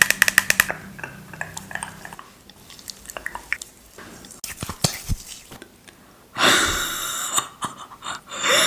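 Makeup products being handled: a quick run of clicks at the start, then scattered taps and clicks of small plastic cases, and about six seconds in a louder hissing, rustling sound lasting about a second.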